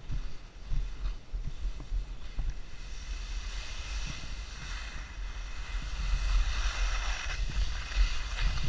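Skis hissing and scraping over snow on a downhill run, with wind buffeting the microphone. The hiss grows louder from about halfway through.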